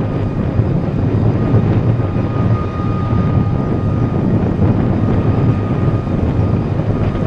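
Wind buffeting the microphone over a steady low rumble, with a faint steady whine above it.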